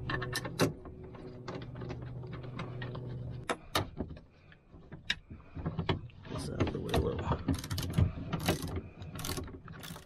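Hand socket ratchet clicking as the seatbelt anchor bolts are run in and tightened down, with scattered knocks of the tool on the metal. A steady low hum sits under the clicks for the first few seconds.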